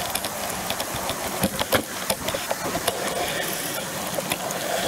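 Ride noise of a Brompton folding bike on wet pavement in the rain: a steady hiss with frequent irregular clicks and rattles.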